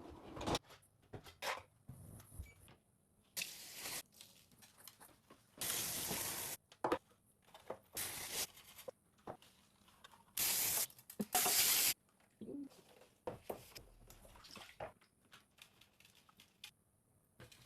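Cleaning spray hissing out in a series of bursts, each up to about a second long, with small knocks and handling noises between them as a refrigerator is cleaned.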